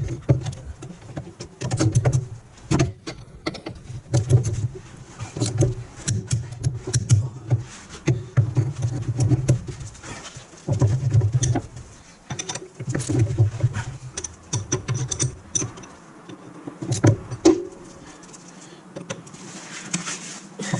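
Hand tools working on the drivetrain bolts: a rhythm of wrench strokes about every two seconds, each with a low hum, metallic clicks and knocks, easing off near the end.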